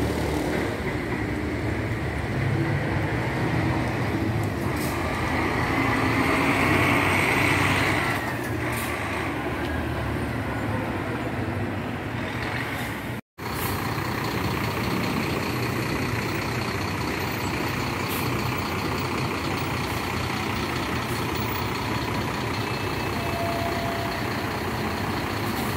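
Diesel engine of a double-decker coach bus running as it pulls away along a city street, with a hiss swelling and fading about six to eight seconds in. After a sudden cut about halfway through, steady coach engine and traffic noise.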